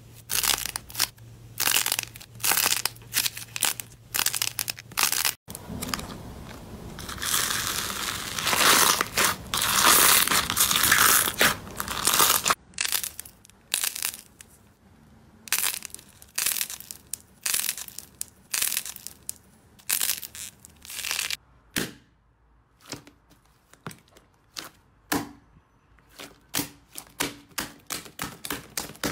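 Slime being pressed, squished and pulled by hand, giving a run of sharp crackling pops. A few seconds in, a stretch of denser crinkling crackle lasts several seconds.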